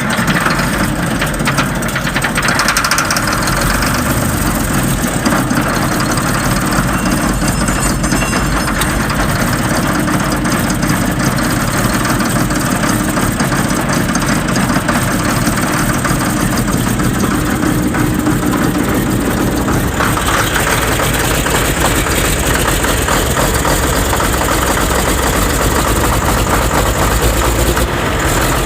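Engine just started cold with a shot of ether, running steadily at idle as it warms up.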